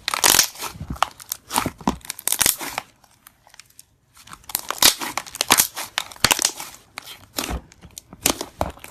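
Crunchy bead slime being squeezed and kneaded by hand, a rapid run of crackling crunches as the beads pop and grind in the slime. The crunching stops for about a second partway through, then starts again.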